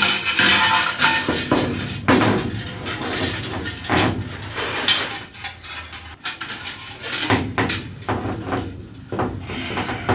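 Irregular metallic knocks, clanks and scrapes as an aluminium 2.5-gallon fuel header tank is handled and bumped against the aluminium airframe and its mounting clamps while being fitted into place.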